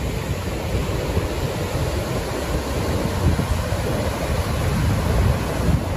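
Water pouring through the open sluice gates of a river barrage, a steady, very loud rush of falling water.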